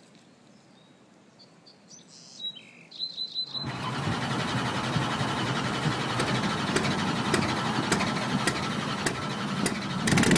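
A few short, high bird chirps, then a truck engine sound starts abruptly a few seconds in and keeps running, growing slightly louder.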